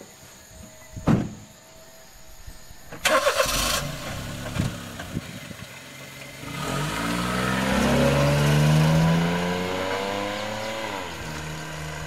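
A Honda Life JB5 kei car's three-cylinder engine is started and the car pulls away, its engine note rising as it accelerates, then dropping in pitch near the end. A sharp thump comes about a second in, and a short burst of noise about three seconds in.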